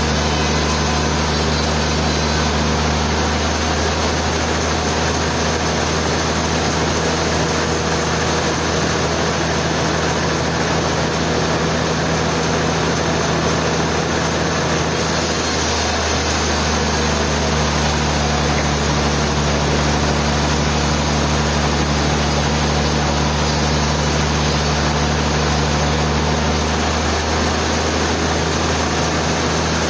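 Sawmill machinery running steadily: a loud, even noise with a constant low hum, which shifts slightly a few times.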